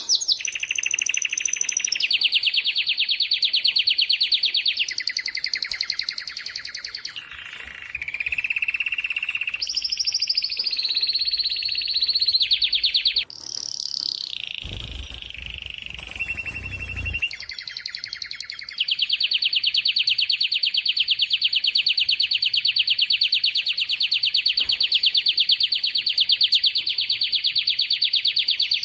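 Domestic canary singing: a string of rapid trilled rolls that change pitch every few seconds, ending in one long, even trill over the last ten seconds. A brief low rumble sounds about halfway through.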